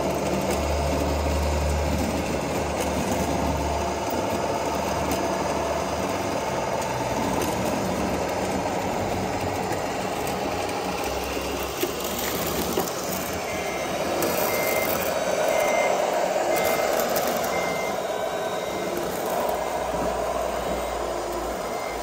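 Radio-controlled model construction machines running steadily, then a reversing beeper starts about two-thirds of the way in, giving short high beeps about once a second as a model truck backs up.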